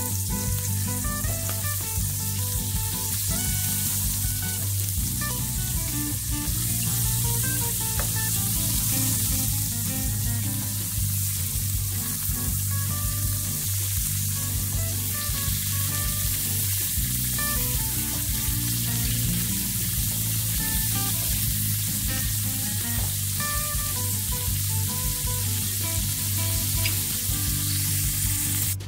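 Sea scallops searing in hot olive oil in a nonstick skillet, sizzling steadily.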